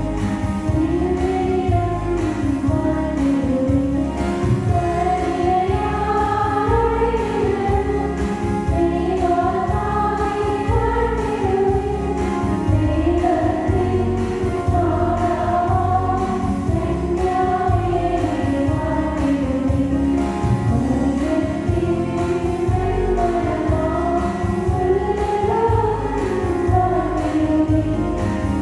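A choir sings a Christian devotional hymn over continuous instrumental backing.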